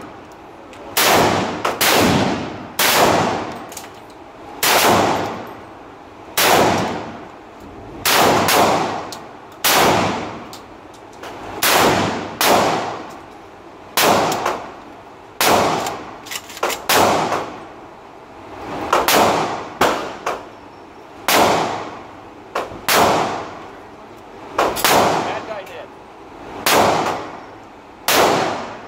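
Saiga-12 semi-automatic 12-gauge shotgun firing a long series of single shots, roughly one every second or two, each blast echoing in an indoor range.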